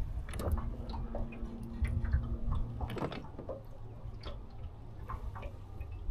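Light, irregular clicks and ticks of a baitcasting rod and reel being worked while a jig is retrieved, over a low rumble. A steady low hum runs for a couple of seconds near the start.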